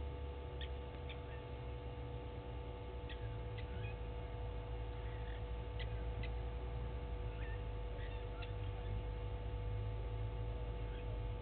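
Scattered short, high bird calls, single notes and pairs about half a second apart, over a steady low hum and rumble from the outdoor camera's microphone.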